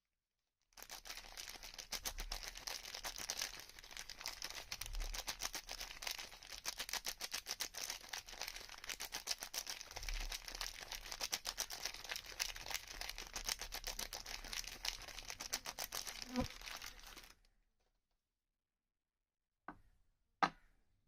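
Soap packaging being unwrapped, the wrapper crinkling and tearing in a dense run of fine crackles that stops abruptly about two thirds of the way through. Two short sounds follow near the end.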